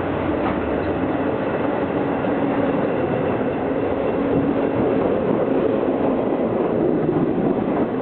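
Long Island Rail Road C-3 bi-level passenger coaches rolling past as the train pulls into the station: a steady rumble of wheels on rail that swells slightly partway through.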